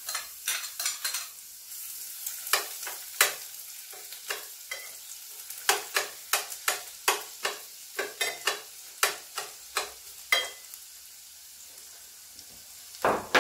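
Chopped garlic sizzling as it sautés in a stainless-steel saucepan, with a metal spoon clinking and scraping against the pan about once or twice a second as it stirs. The clinking stops about ten seconds in, leaving the steady sizzle, and a louder knock comes near the end.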